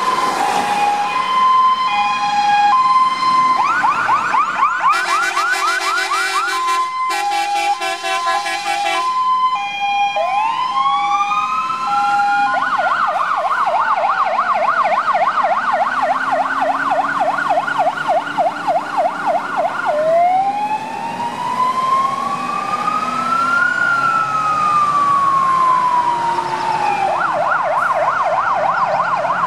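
Electronic sirens of fire engines leaving on an emergency run, switching between patterns: a two-tone hi-lo at the start, a very rapid pulsing warble from about 5 to 9 seconds in, slow rising-and-falling wails, and a fast repeating yelp, which is back on at the end.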